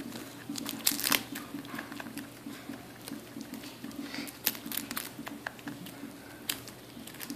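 Ring-tailed lemur chewing and tearing at crisp seaweed: irregular crackling and crinkling clicks, a few at a time.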